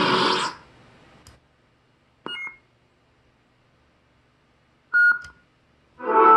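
Lightsaber sound board through its small speaker: the blade's retraction sound ends about half a second in, leaving near silence. Two short electronic beeps follow, about three seconds apart, and near the end a sound with many steady tones begins.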